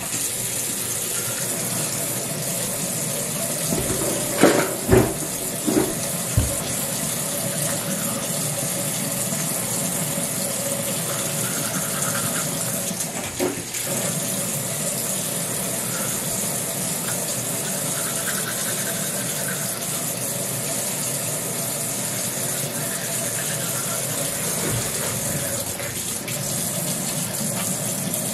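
Water running steadily from a bathroom tap, with a few short knocks about four to six seconds in and another about halfway through.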